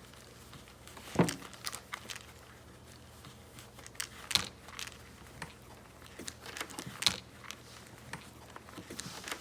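Scattered clicks, taps and light knocks of small toy pieces being handled, the loudest about a second in.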